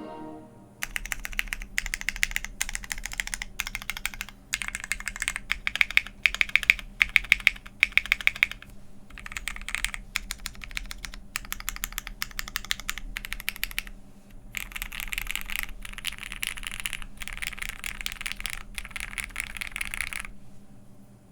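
Steady typing on a Crucible65 custom mechanical keyboard fitted with lubed and filmed Cherry MX Black Hyperglide linear switches, an aluminium plate, GMK keycaps and case foam. The keystrokes come in quick runs broken by short pauses about four, nine and fourteen seconds in, with a few louder clacks between six and eight seconds.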